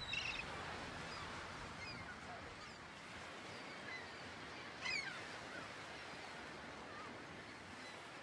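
Birds calling faintly over a steady outdoor hiss, in short scattered chirps, the loudest just after the start and about five seconds in.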